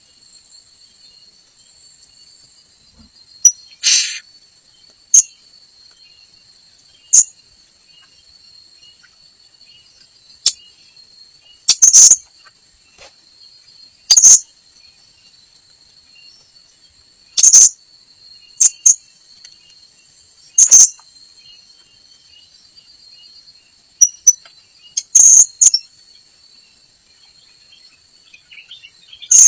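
Short, sharp, high-pitched calls of a blue-crowned hanging parrot (srindit), about a dozen of them at irregular intervals, some in quick pairs. Behind them runs a steady high insect drone of cicadas or crickets.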